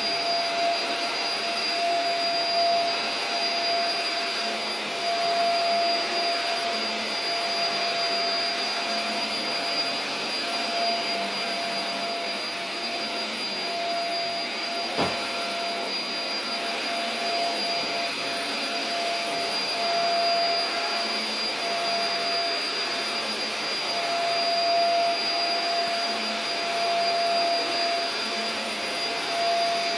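Upright vacuum cleaner running steadily with a constant whine, with a single sharp click about halfway through.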